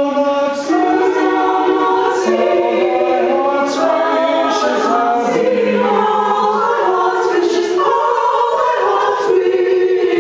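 A choir singing unaccompanied in slow, held chords, the voices changing notes together about once a second.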